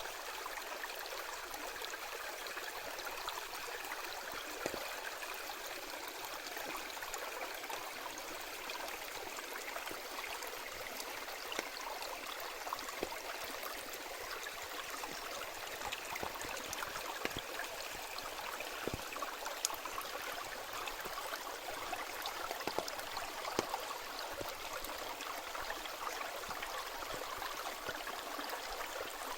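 Mountain stream flowing: steady rushing, babbling water with small splashes and drips scattered through it.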